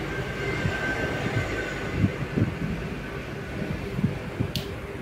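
Steady fan hum with a faint high whine, broken by a few soft knocks and a sharp click about four and a half seconds in as wires and a connector are handled on the bench.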